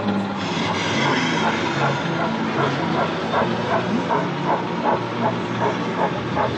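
Model steam locomotive chuffing in a steady rhythm of about three beats a second, starting about two seconds in, over a continuous background hubbub.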